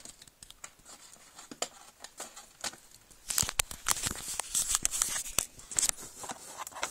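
Hands working at a wooden art case full of paint tubes: scattered clicks, knocks and rustles as the tubes shift and the tray is pried out, growing busier about three seconds in.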